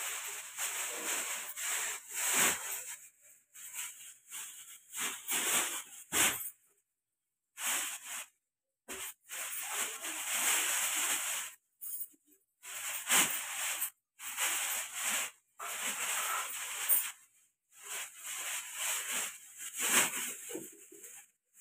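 Thin plastic carrier bag crinkling and rustling as hands rummage in it and work its top, in irregular bursts with a few brief pauses.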